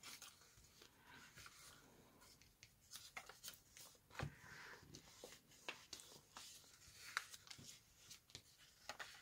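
Faint handling of paper: a glue stick rubbed on paper and folded pages pressed down by hand, with light rustles and scattered soft clicks and a small tap about four seconds in.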